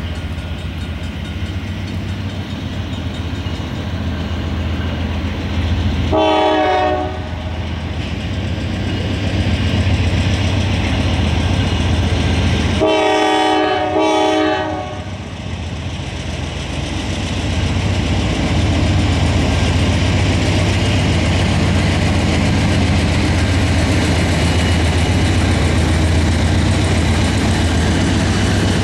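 Norfolk Southern diesel-electric locomotives leading a double-stack intermodal train, their engines running with a steady low rumble that grows louder as the train approaches. The locomotive horn sounds a short blast about six seconds in, then a longer blast about halfway through, broken by a brief gap.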